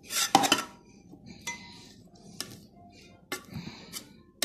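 A metal knife scraping and clicking against the rim of an aluminium baking tray as it works around the pastry edges of a cheese börek. It comes as a series of separate strokes, the loudest in the first half-second.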